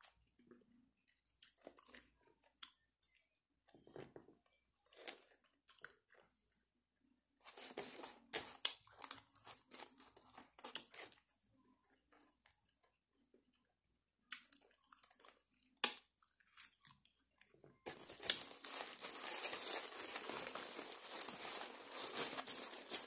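Close-miked chewing of fries, with crunching and small wet mouth sounds in scattered bursts. From about 18 seconds in, a steady crinkling of a food wrapper being handled takes over.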